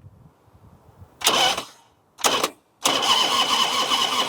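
Harley-Davidson Electra Glide's electric starter cranking the V-twin engine in three bursts, two short and then a longer one of about a second and a half, with a steady high whine from the starter. The engine turns over but does not fire, as there is no fuel in it.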